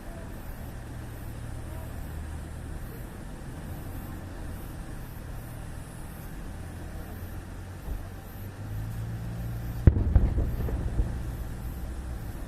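A steady low rumble, then a firework shell bursts with a sharp bang about ten seconds in, followed by a few quick cracks and an echoing tail.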